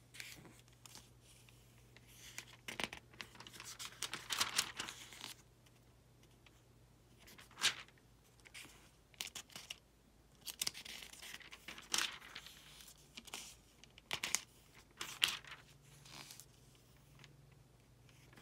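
Thin pages of a study Bible being turned and leafed through: irregular soft paper swishes, with a few sharper, louder page flicks.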